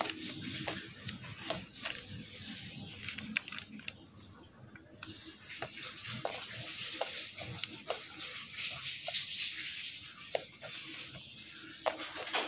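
Fork and knife pricking and scraping the skin of a long green eggplant: scattered small irregular clicks over a steady background hiss.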